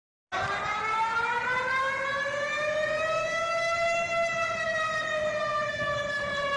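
Civil defence warning siren wailing. It starts suddenly, climbs slowly in pitch for about three and a half seconds, then slowly falls again.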